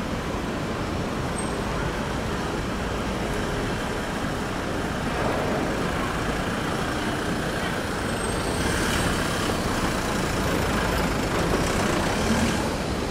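City street ambience: steady road traffic noise, swelling a few times as vehicles pass.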